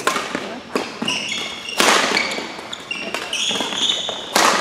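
Badminton rally in a hall: about four sharp cracks of rackets striking the shuttlecock, the loudest a smash near the end. Short high squeaks of court shoes on the floor come between the hits.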